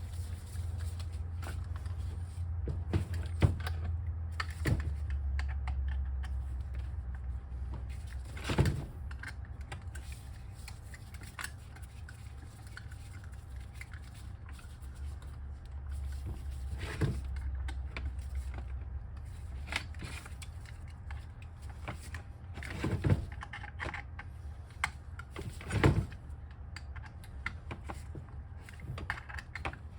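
Scattered knocks and clicks of hand tools and metal motor parts being handled and set down, over a low steady rumble. There is no power-tool run.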